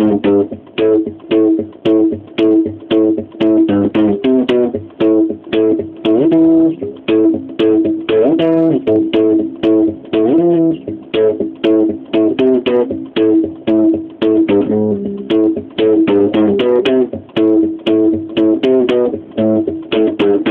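Electric bass guitar playing an improvised riff: a quick, steady run of plucked notes, with a few sliding notes around the middle.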